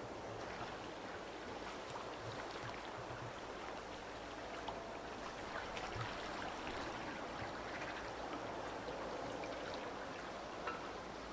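River ice drift in spring: broken ice floes and slush carried on the current, a steady rushing hiss of water and ice with many small scattered clicks and crackles.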